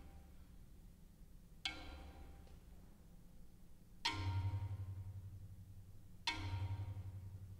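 Low notes on a concert marimba struck singly with mallets: three strokes a little over two seconds apart, each ringing on with a deep hum, the last two louder than the first.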